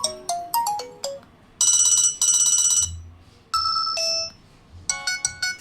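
Nokia 220 mobile phone playing short electronic ringtone snippets one after another. First comes a quick falling run of beeps, then two long buzzy chords, then a couple of held tones and a fast run of short notes, each snippet stopping abruptly.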